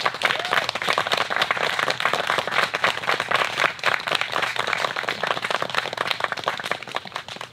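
Crowd of guests applauding: many hands clapping densely together, easing off slightly near the end.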